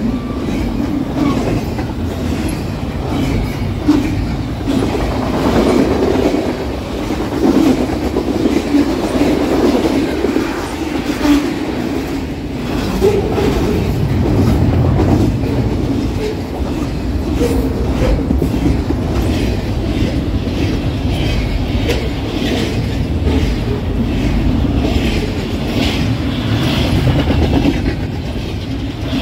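Double-stack intermodal freight train passing at high speed: a steady rumble of well cars with the wheels clacking over rail joints.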